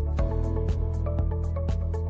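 Background music with a steady beat of about two ticks a second over held bass notes and chords.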